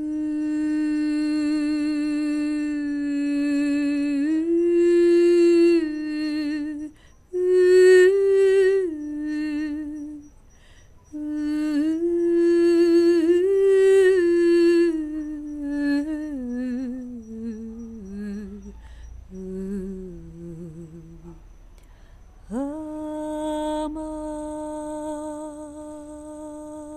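A woman's voice humming a wordless melody in long held notes with vibrato. Past the middle the tune steps down in pitch, and near the end a last long note is held.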